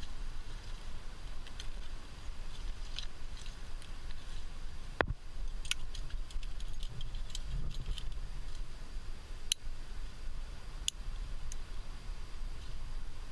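Metal climbing gear on a harness clinking now and then, a few sharp clicks and one louder knock about five seconds in, over a low steady rumble.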